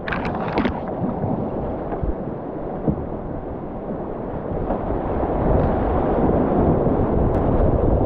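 Whitewater rapids rushing around a river kayak, with a brief paddle splash right at the start. The rush grows louder from about five seconds in as the boat drops into steeper, whiter water.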